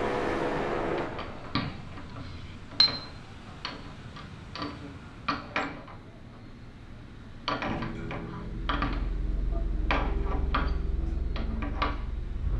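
Metal hammer heads clinking and knocking against a metal doorknob in a string of irregular taps as they fumble at it, unable to grip and turn it; the sharpest clink comes about three seconds in. A low steady drone comes in underneath about halfway through.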